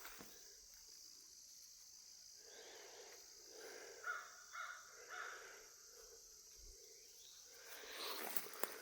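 Crows cawing several times, faint and distant, over a steady high-pitched insect drone.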